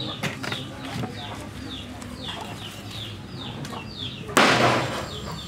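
Chicks peeping in short falling cheeps, a few a second, with a few light clicks early on and a short, loud rustling burst about four and a half seconds in.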